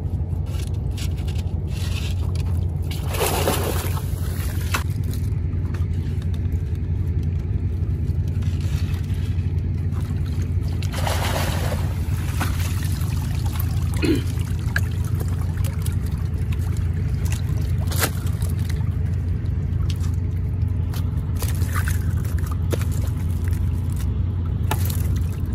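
Oyster shells clattering and water trickling as oysters are lifted out of a submerged basket, with two longer splashes of water about three seconds and eleven seconds in. A steady low hum runs underneath.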